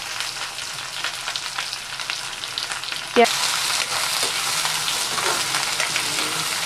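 Sliced onions sizzling and crackling in hot oil in a kadhai while being stirred with a spatula. About three seconds in comes one sharp clank, and after it the sizzle is louder.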